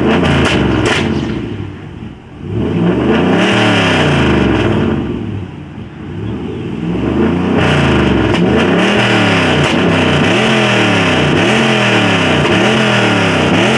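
A car engine revved over and over in quick blips, loud through the exhaust, settling into about one rev a second in the second half.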